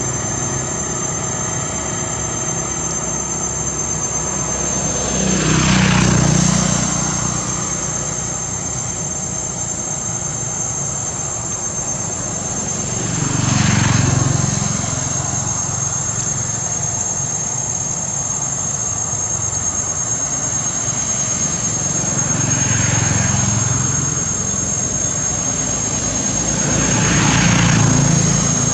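Road traffic: four vehicles pass one after another, each swelling up and fading away over a couple of seconds, over a steady low rumble.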